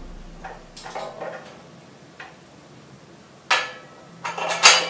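Aluminum display-truss parts clinking as they are fitted together by hand: a few light metal clicks, then from about three and a half seconds in several louder clanks, each with a short ring.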